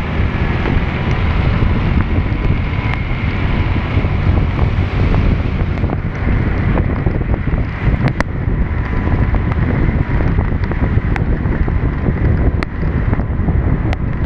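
Steady wind rumble on an action camera's microphone while riding through heavy rain, with a few sharp ticks scattered through it.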